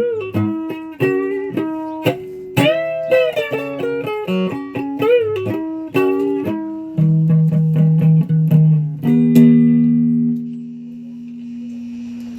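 Guitar being played: a run of single plucked notes, some bent up in pitch. A chord is struck about seven seconds in and another just after nine seconds, which rings out and fades.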